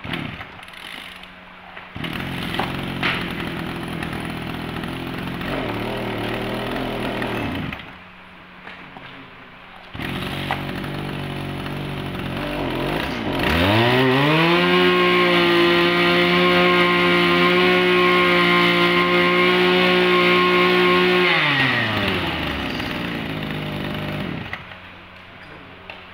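Small 24cc two-stroke engine of an Echo backpack brush cutter, run on test. It catches about two seconds in, idles briefly and dies. It is restarted a couple of seconds later and idles, then is opened up to full revs and held there for about eight seconds with a high, steady whine. It drops back to idle and is shut off near the end.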